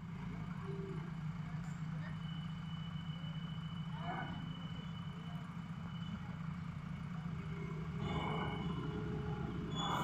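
Diesel engines of a JCB backhoe loader and a tipper truck running steadily. Short higher-pitched sounds come in about four seconds in and again near the end.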